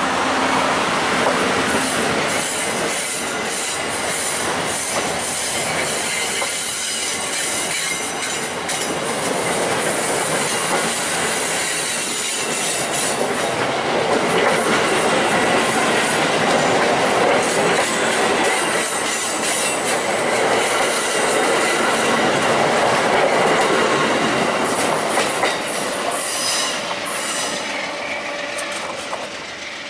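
Amtrak passenger train's stainless-steel cars rolling past at close range, wheels clattering over the rail with some wheel squeal on the curving track. The sound drops off near the end as the last car pulls away.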